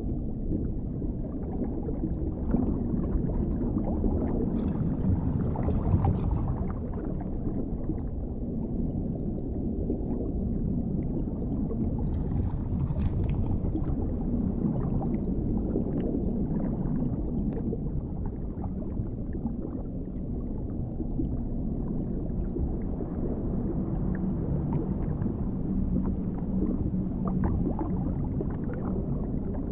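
Underwater ambience: a steady, muffled, deep rumble of water, with faint scattered bubbling and ticks above it.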